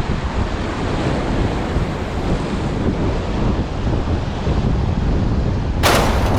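Strong wind buffeting the microphone over the wash of surf, with a sudden short burst of noise near the end.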